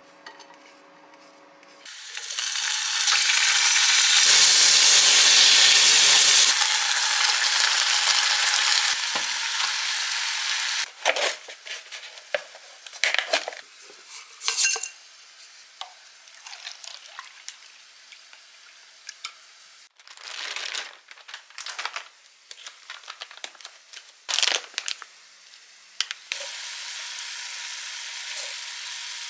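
Sliced garlic dropped into hot oil in a frying pan, sizzling loudly for several seconds and then dying down. Short rustles and knocks follow as a paper cup-noodle cup is handled, and near the end a steadier, softer frying sizzle starts again.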